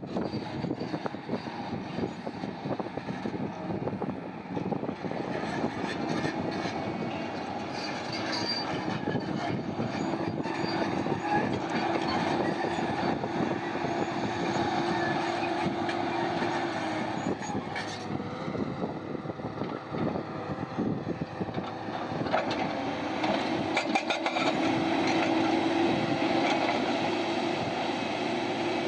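Heavy machinery feeding rock into a crusher: continuous mechanical noise with dense rattling and clatter of rock. A steady hum comes in about six seconds in, drops away partway through, and returns near the end.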